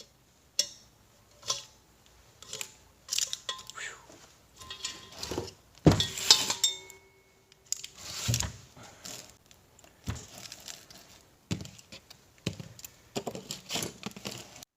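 Metal parts of a sawn-open A/C compressor clinking, clanking and knocking as they are handled and pulled apart, with heavier knocks about six and eight seconds in.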